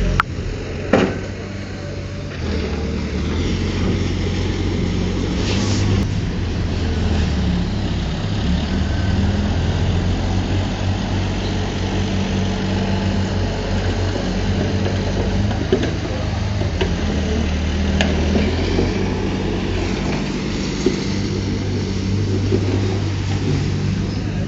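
Diesel engine of heavy earthmoving machinery running steadily under load, with a few sharp knocks.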